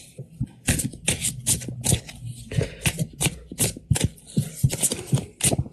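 Irregular sharp clicking, about two or three clicks a second.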